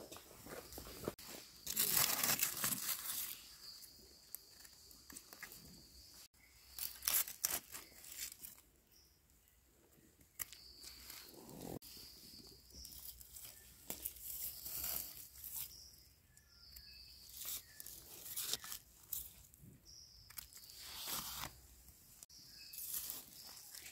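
Dry leaf litter rustling and crackling in irregular bursts as it is brushed aside by hand to uncover and pick mushrooms from the forest floor, loudest about two seconds in and again around seven seconds.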